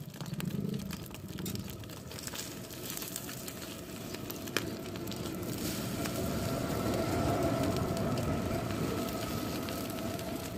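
Egg and parathas sizzling in oil on a large flat iron griddle, with a metal spatula scraping and tapping on the iron; one sharp tap about four and a half seconds in, over a faint steady hum.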